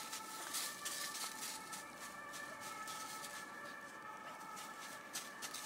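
Footsteps rustling and crackling through dry fallen leaves in irregular bursts, busiest in the first second and again near the end.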